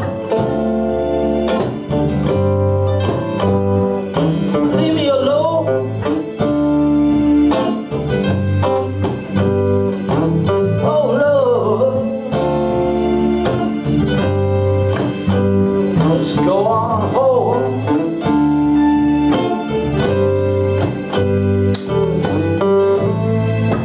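Live acoustic band playing a song: strummed acoustic guitar, electric bass, cajon and keyboard, with a voice singing at times.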